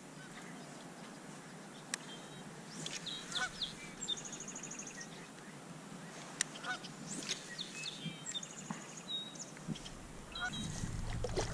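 Wild birds calling: scattered chirps and rising calls with a fast trill about four seconds in, and two sharp clicks. A low rumble comes up near the end.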